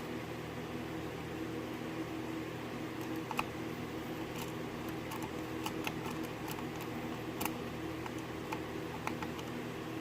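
Scattered light metallic ticks of a hook pick working the pins of a Euro cylinder gate lock, a dozen or so irregular clicks, over a steady hum.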